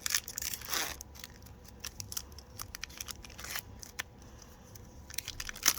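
Foil Pokémon booster pack wrapper crinkling and crackling as it is opened, in a run of short crackles, loudest in the first second.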